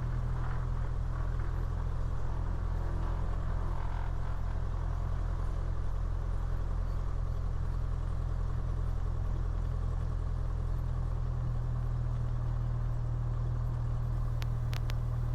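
Cessna 172's piston engine running steadily at low power, idling after the run-up, as heard inside the cockpit. A few faint clicks come near the end.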